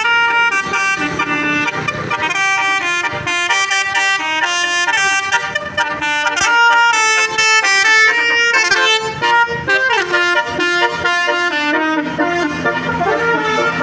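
Basuri telolet bus horn, a multi-trumpet musical horn, playing a fast tune of stepped notes one after another, with a falling slide about ten seconds in.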